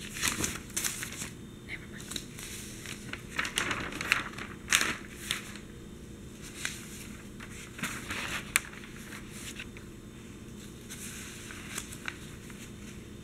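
Newsprint pages of a large broadsheet newspaper rustling and crinkling as they are handled and turned, in quick bursts that are busiest over the first five seconds or so and pick up again near the end. About eight and a half seconds in there is a single sharp tick.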